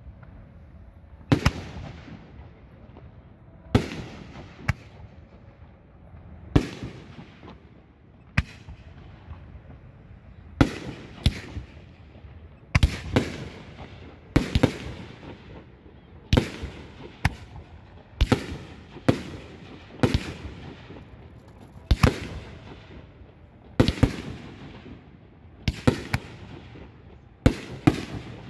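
Aerial firework shells fired from ground mortar tubes and bursting overhead. A sharp bang comes about every one to two seconds, some in quick pairs, each followed by a fading rumble.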